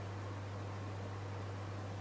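Room tone: a steady low hum under an even hiss, with no distinct sound from the batter being poured.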